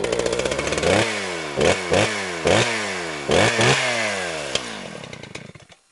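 Two-stroke chainsaw engine revved in about six sharp throttle blips, the pitch falling away after each, before it fades out near the end.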